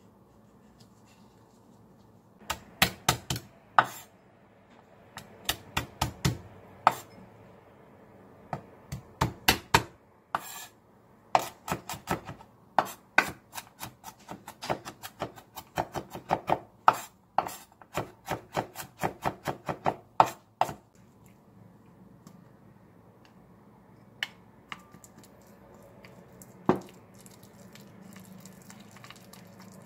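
Kitchen knife chopping garlic cloves on a wooden cutting board: sharp knocks of the blade, sometimes several a second, stopping about two-thirds of the way through, with a single knock later.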